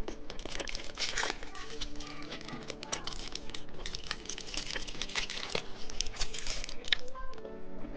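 Candy wrapper crinkling and tearing as a piece of candy is unwrapped by hand, a dense run of short, irregular crackles.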